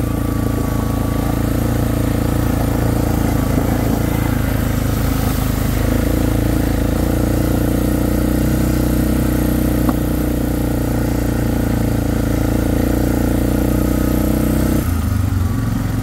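Arctic Cat four-wheeler engine running steadily as the ATV rides along a trail; its note shifts slightly about six seconds in and drops near the end.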